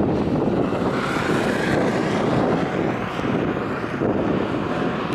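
Jet noise from a Boeing 787-9 airliner's twin GEnx turbofan engines as it climbs away after takeoff: a steady, broad noise.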